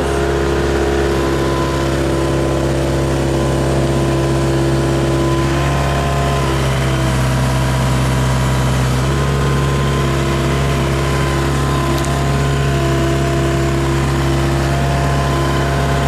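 Backhoe engine running steadily at a constant speed, its note shifting slightly about nine seconds in.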